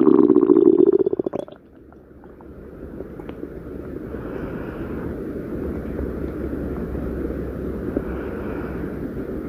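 Stomach growling: a loud, buzzy growl that cuts off abruptly about a second and a half in, followed by a quieter, steady low rumbling.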